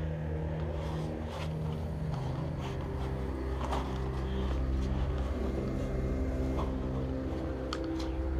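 Someone clambering up through a hole onto rubble, with a few scattered scrapes and knocks, over a steady low drone of several pitches that runs underneath throughout.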